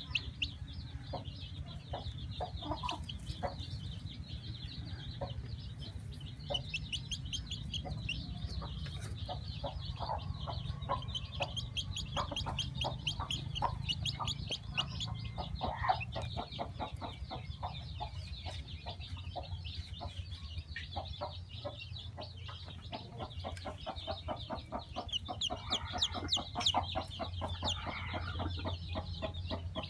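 Chicks peeping in a rapid run of short, high-pitched cheeps, with lower clucking among them; the peeping thins for a few seconds past the middle, then picks up again.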